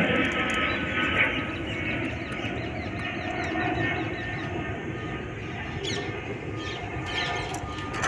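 Rumble of a passing vehicle, with a few faint steady tones in it, easing off over the first couple of seconds and then going on at a lower, steady level.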